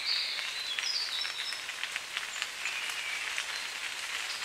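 Rain dripping and pattering through a wet forest canopy, heard as many small drop ticks, with a few short high bird chirps over it.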